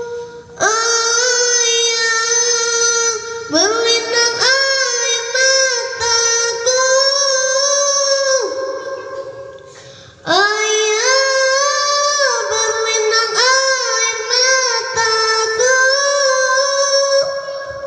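A child's solo voice chanting a syair, an Indonesian sung poem. The notes are high and long, with wavering ornaments, in two phrases with a short pause about halfway through.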